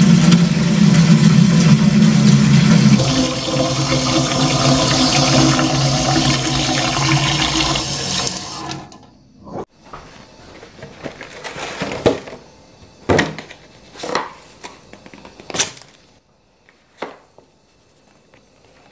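Tap water running into a plastic watering can in a stainless-steel sink: a loud, steady rush that cuts off about eight and a half seconds in. After it come a handful of short, separate knocks and rustles as a clear plastic tray and potted plants are handled.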